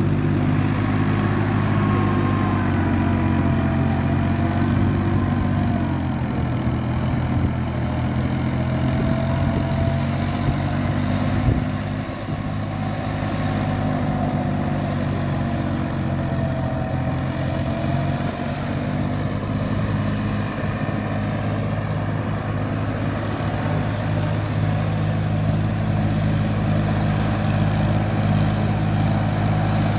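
Tractor engine running steadily under load as it plows a flooded paddy field: a low, even hum with a faint wavering whine above it.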